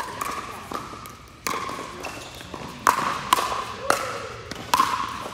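Pickleball paddles striking a hard plastic pickleball in a fast rally: a string of sharp pops, each with a short ringing tail in the echoing hall, coming quicker in the second half.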